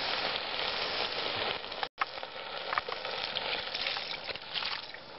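Meat, samphire and tomato sizzling in a hot stainless steel pressure cooker: a steady frying hiss with a few light clicks. The sound drops out for an instant about two seconds in.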